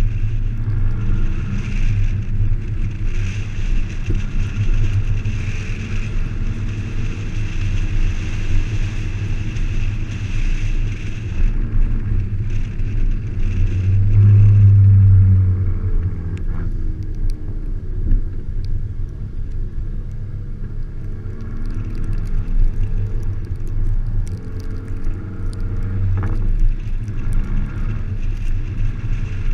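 Volkswagen Golf GTI Mk5 driving on a snowy road, heard from a camera mounted on the outside of the car: a steady low rumble of engine and tyres, with the engine note rising and falling as the driver works the throttle. It is loudest about halfway through.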